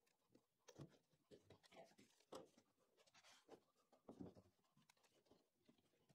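Near silence, with faint scattered knocks and scrapes of an MDF sheet being lifted and a bar clamp being handled on a timber bench.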